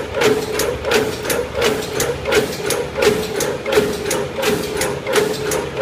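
Paper fries carton moulding machine running, its mechanism clacking in an even rhythm of about three strokes a second over a steady hum.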